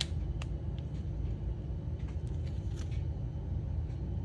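A few light clicks from a Walther P-38 pistol being handled, over a steady low rumble.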